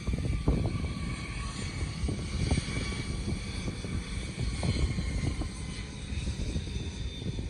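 Airbus A319's CFM56-5B turbofan engines running as it moves along the runway: a steady high whine over a low rumble.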